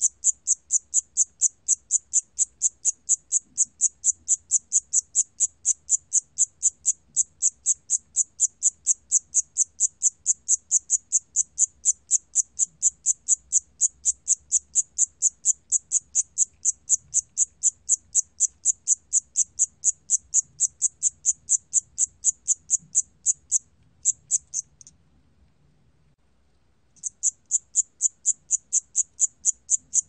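Siamese cricket (샴귀뚜라미) calling song recorded at 28 °C: an even train of high-pitched chirps, about three a second. The chirping breaks off briefly, then stops for about two seconds near the end before starting again.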